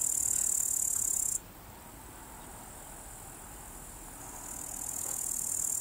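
Crickets chirring in a steady, high-pitched hiss that cuts off abruptly about a second and a half in, then swells back in near the end.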